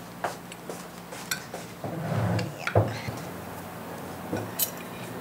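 Cutlery and dishes clinking at a breakfast table: scattered light taps of silverware on china plates, with a soft knock a little before three seconds in.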